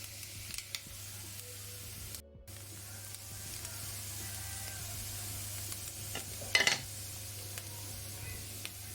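Freshly washed green beans sizzling steadily in a frying pan, with a short loud clatter of stirring about six and a half seconds in. The sound cuts out for a moment about two seconds in.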